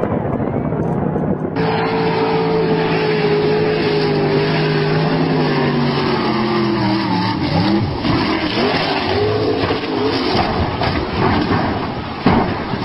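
Race boat engine running hard at speed, its pitch steady and then dropping and wavering as the throttle comes off. Near the end there is a sudden crash as the boat hits the rocky shore.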